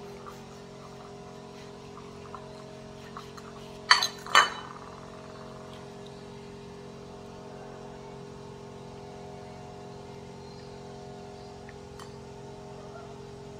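A knife clinks twice against a ceramic plate, two sharp clinks about half a second apart, over a steady low hum.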